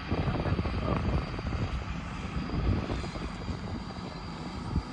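Tractor engine running steadily during mechanized sowing.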